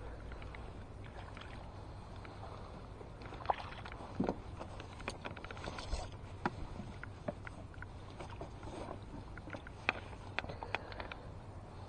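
A hooked fish splashing and slapping at the surface of a lake as it is played in toward a landing net: irregular small splashes, with a few sharper slaps, over a low wind rumble on the microphone.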